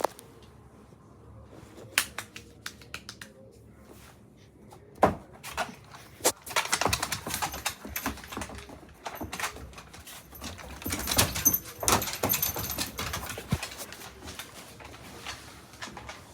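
A dog making quick clicking and scratching noises, scattered at first and then a dense run of clatter in the middle before it thins out again.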